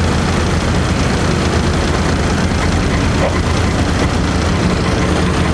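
Car ferry's engines running steadily with a loud low hum as it comes in to the landing slipway.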